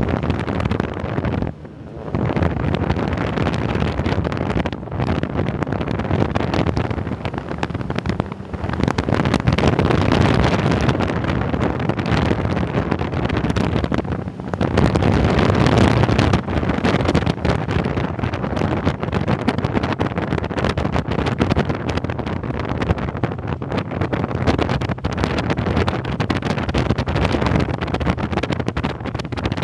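Dune buggy engine running as the buggy drives over sand, with wind buffeting the microphone; the noise drops in a few brief lulls.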